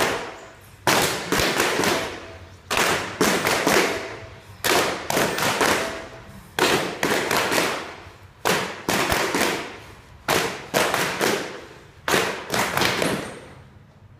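Rhythmic percussive crashes: a ragged cluster of three or four sharp hits about every two seconds, each cluster fading away slowly, stopping about a second before the end.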